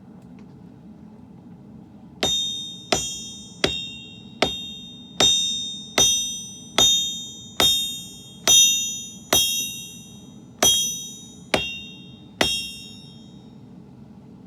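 Hand hammer striking the steel of a sword blade being forged: about thirteen blows a little under a second apart, each with a high metallic ring that dies away.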